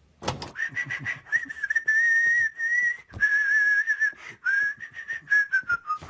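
Whistling: one long wavering note held high, stepping lower and sliding down near the end, over a patter of short clicks.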